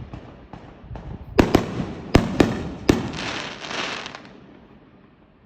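Fireworks going off: five sharp bangs in quick succession between about a second and a half and three seconds in, followed by a crackling hiss that fades away.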